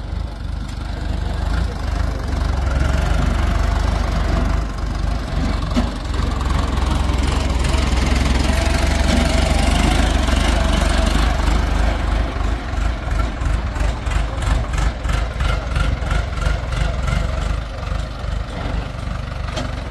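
Tractor diesel engine running steadily close by with a low rumble. A little past halfway an even pulsing clatter of about three beats a second comes in over it.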